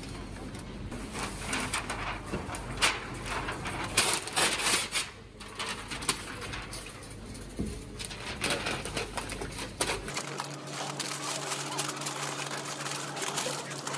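Brown kraft wrapping paper rustling and crinkling as it is pulled off the roll and handled, in a run of irregular crackles.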